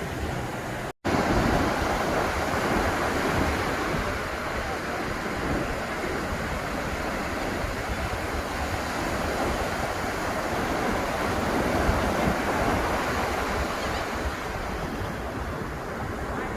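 Ocean surf washing steadily onto a beach, with wind buffeting the microphone. The sound drops out for an instant about a second in, then resumes.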